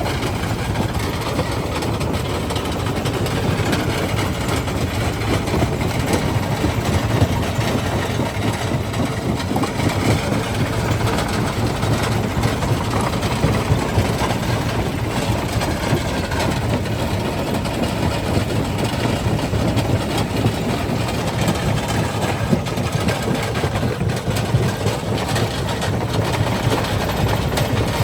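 Quarry primary jaw crusher running steadily: a dense, heavy mechanical drone with frequent small knocks of rock being crushed.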